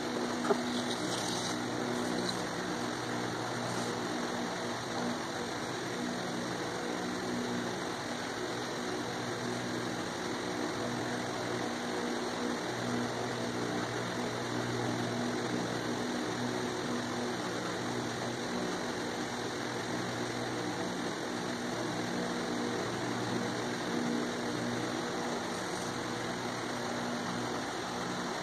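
A steady low mechanical hum with hiss, unchanging throughout, and one short click about half a second in.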